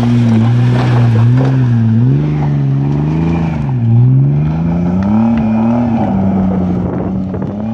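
Jeep Grand Cherokee engine revving hard under load up a steep dirt climb, its pitch dipping and rising several times with the throttle. The wheels spin in the loose dirt and spray it.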